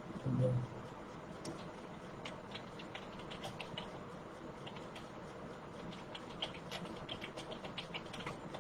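Computer keyboard being typed on: faint, quick, irregular keystroke clicks, several a second, as a typing-test passage is keyed in.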